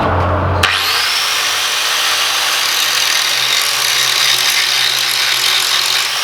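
A grinder spins up with a rising whine about half a second in, then runs steadily against a piece of wrought iron for a spark test. The faint, red, non-exploding sparks it throws confirm the metal is wrought iron.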